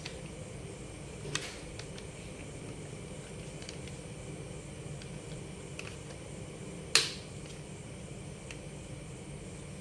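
Hard plastic toy truck parts being handled, giving a few light clicks and one sharp plastic click about seven seconds in, over a steady background hum.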